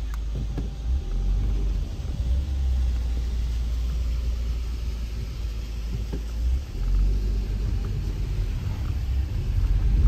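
Car driving slowly along an unpaved road, heard from inside the cabin as a steady low rumble.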